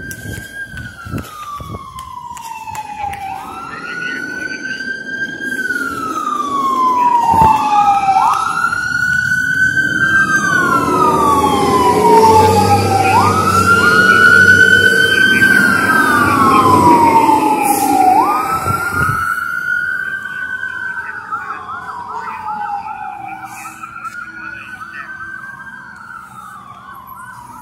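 Fire engine sirens wailing, each sweep rising quickly and falling slowly about every two and a half seconds, with two sirens overlapping through the middle. The apparatus passes close, loudest with its engine rumble around the middle, then the wail fades as it drives away.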